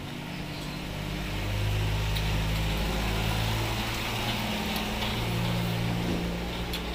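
An engine running with a steady low hum that shifts in pitch now and then, getting louder about a second and a half in.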